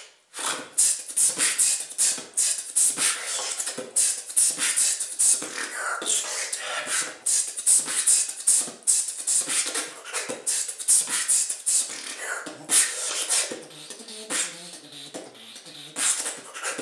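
Solo human beatboxing: a fast, dense run of sharp percussive mouth sounds and hissing hi-hat-like breaths, one performer's voice alone.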